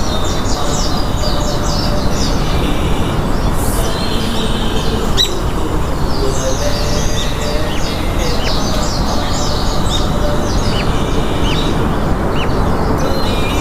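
Many small birds chirping, with short quick high calls throughout, over a loud steady low rumble.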